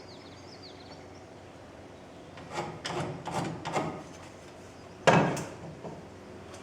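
About four short scraping strokes against wood framing, then a single sharp knock on wood about five seconds in.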